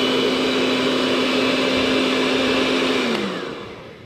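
Electric hand mixer running steadily with its beaters in a bowl of egg whites whipped to stiff peaks. About three seconds in it is switched off and the motor winds down, its hum falling in pitch.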